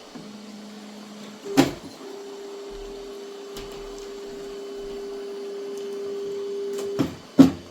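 Elegoo Neptune 4 Max 3D printer's stepper motors driving the X axis at the start of its input shaper calibration. A low steady hum for about a second, then a knock, then a higher steady whine for about five seconds that grows a little louder, ending in two sharp knocks.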